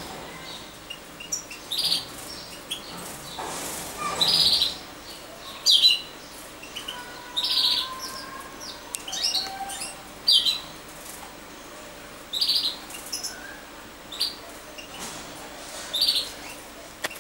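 Caged finches calling: short, high chirps every second or two, with a few faint whistled notes in between.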